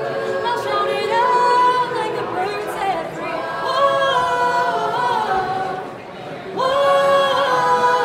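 Young women's a cappella choir singing in harmony, holding long chords. The sound dips briefly about six seconds in, then a new loud chord comes in.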